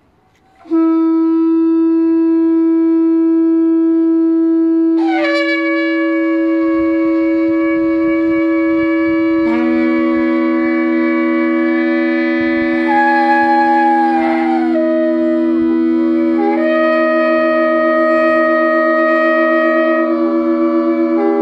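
Several long spiralled shofars blown together in one sustained, loud blast. The first horn sounds about a second in, and more horns join about five and ten seconds in. Each holds its own steady pitch, so they stack into a held chord. Midway one horn's note sags and wavers before steadying again.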